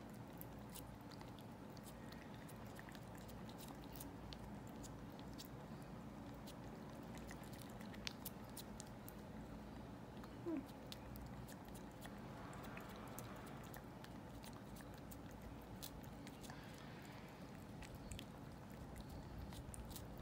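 Domestic cat licking paste from a squeeze-tube treat: many small, quick, wet tongue clicks and smacks, with one brief louder sound about halfway through.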